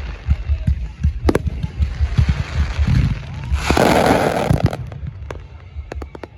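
Fireworks going off: a rapid run of deep booms from bursting shells, with sharp cracks. About three and a half seconds in comes a loud noisy rush lasting about a second.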